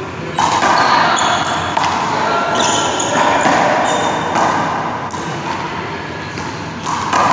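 A small rubber handball bouncing and sneakers squeaking on an indoor court floor, with short squeaks scattered through a noisy stretch that starts suddenly about half a second in.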